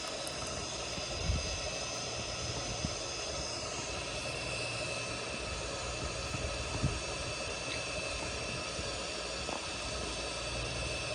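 Jet engines of a Boeing 787-10 airliner on its landing, a steady whine of several tones over a constant rush of noise, with a couple of brief low thumps.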